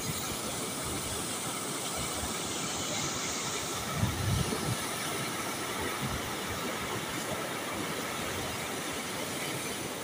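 Flooded mountain river rushing in turbulent whitewater, a steady noise with no let-up, with a brief low thump about four seconds in.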